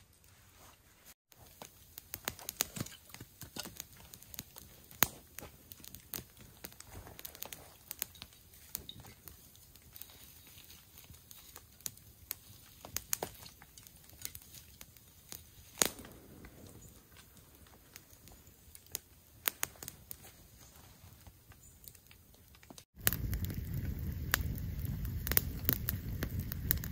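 A small fire of dry twigs crackling and popping in scattered sharp snaps as sticks are fed in. About 23 seconds in it changes to the campfire blazing: a much louder steady rush of flame with dense crackling.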